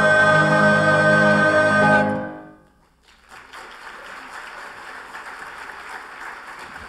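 A choir with piano holds the song's final chord, which is released about two seconds in and dies away; after a brief silence the audience applauds steadily at a lower level.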